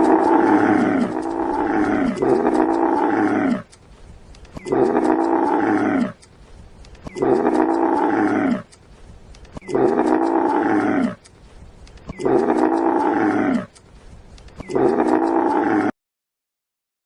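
Tiger roaring: one long roar, then five shorter roars about two and a half seconds apart, each falling in pitch.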